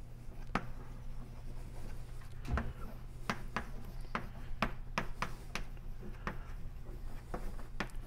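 Chalk writing on a blackboard: a run of sharp, irregular taps and short scrapes as letters are written, starting about two and a half seconds in, over a low steady hum.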